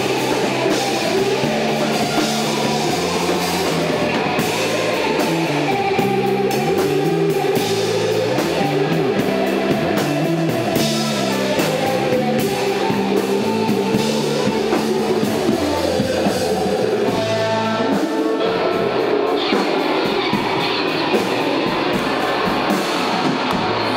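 Rock band playing live: electric guitar, bass and drum kit, with a stepping bass line under steady drum hits.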